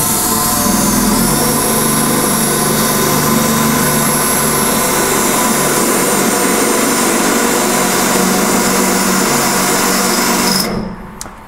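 Cordless drill boring through a sheet-metal patch panel and about halfway into the cab metal beneath it, making a hole for a rosette weld. It runs steadily with a high whine and stops suddenly about ten and a half seconds in.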